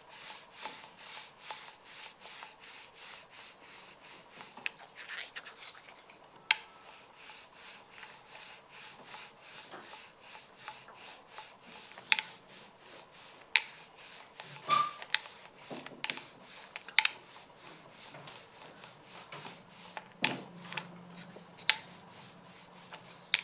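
Foam sponge paint roller loaded with encaustic wax being rolled back and forth over painting cardboard: a soft, repeated rubbing, with a few sharper clicks among the strokes.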